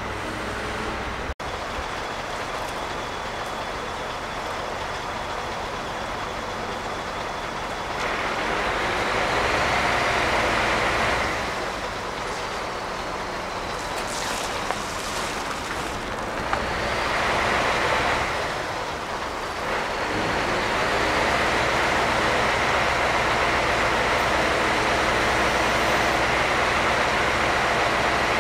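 Heavy vehicle engines running over a steady low hum, swelling louder three times in long waves.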